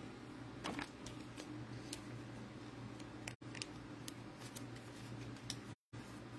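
Faint handling of trading cards: a few light clicks and rustles over a steady low electrical hum. The sound cuts out completely twice for a moment, at edits.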